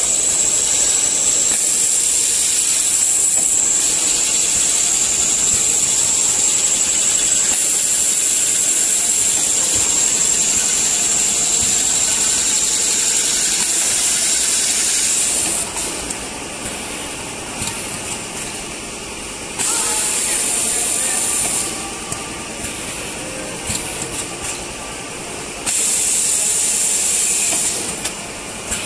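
Vertical form-fill-seal packing machine running, heard as a loud steady hiss with a high whistle in it. The hiss cuts off about halfway through, then comes back twice for about two seconds each over quieter machine noise.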